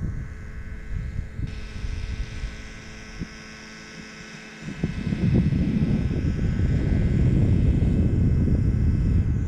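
Wind buffeting the microphone in gusts, easing for a moment about three seconds in and then coming back stronger, over a faint steady hum.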